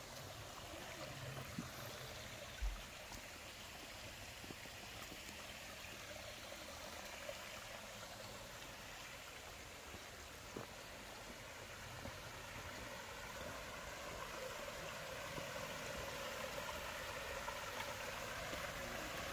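Shallow woodland stream running over rocks: a steady rush of water that grows a little louder near the end. A brief low thump comes about three seconds in.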